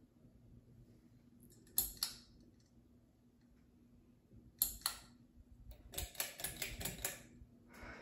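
Harbor Breeze Mayfield ceiling fan running with a faint steady hum, broken by sharp clicks: two about two seconds in, two more near five seconds, then a quick rattling run of clicks around six to seven seconds.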